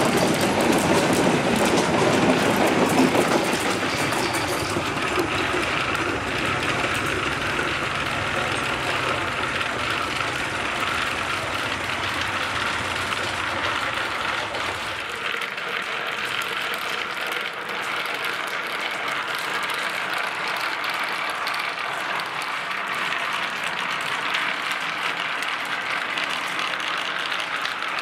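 Many glass marbles rolling along wooden marble-run tracks: a continuous rolling rumble thick with small clicks and clatter. It is loudest for the first few seconds, then settles to a steady level, and the deeper rumble drops away about halfway through.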